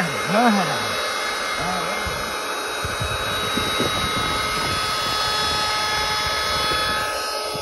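A steady motor drone with a few fixed whining tones, from a machine running nearby. Just after it starts, two short rising-and-falling voice-like calls are heard over it, and scattered scuffs and knocks come during the tug play.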